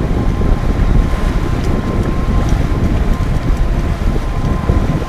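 Wind buffeting the microphone on a moving boat, a loud, uneven low rumble, with a faint steady whine under it.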